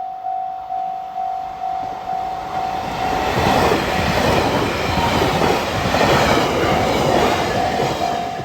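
Japanese level-crossing alarm ringing, a repeating electronic bell tone about twice a second, while a train passes through the crossing. From about three seconds in, the train's running noise and wheels on the rails swell and drown out the bell for several seconds. The bell comes back clear near the end.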